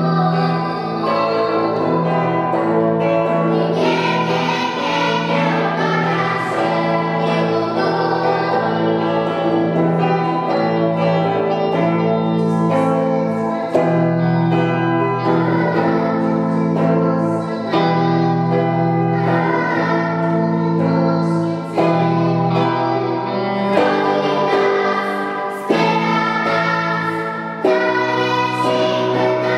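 Children's choir singing a song with electric guitar accompaniment over sustained low bass notes.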